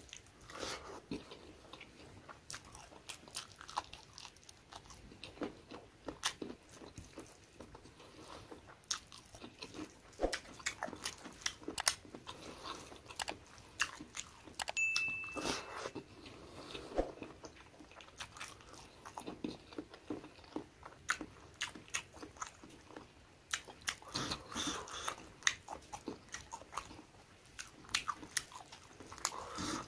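Chewing and crunching at close range: wet mouth clicks and smacks as a person eats rice and chicken curry by hand, in irregular runs of sharp clicks.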